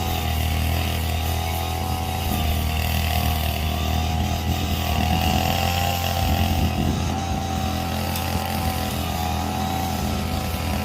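Small two-stroke brush cutter engine running steadily at an even speed.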